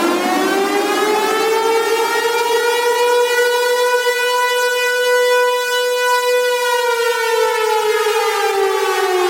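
Civil defense siren wailing: its tone climbs over the first few seconds, holds a long steady pitch, then slowly slides down near the end.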